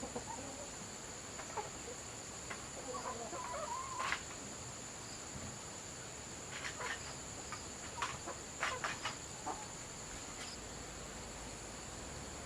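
Chickens clucking now and then over a steady, faint high-pitched insect drone, with short calls about three to four seconds in and again near the middle.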